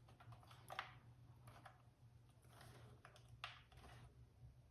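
Faint scattered clicks and taps of small computer parts being handled, three of them clearer than the rest, over a low steady hum.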